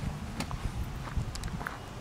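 Wind rumbling on the microphone, with a few light ticks and short chirps on top.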